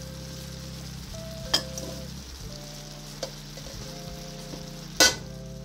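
Vegetables with a fresh pile of spinach sizzling gently in a skillet. Two sharp clicks are heard, one about a second and a half in and a louder one near the end.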